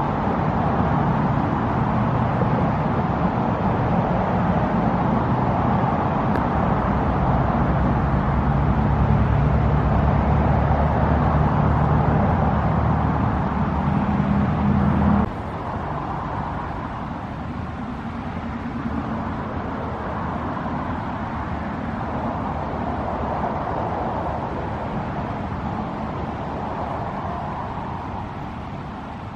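Road traffic from a busy road: a steady wash of passing vehicles with a heavy engine's low rumble. About halfway through, the rumble cuts off abruptly and the traffic becomes quieter.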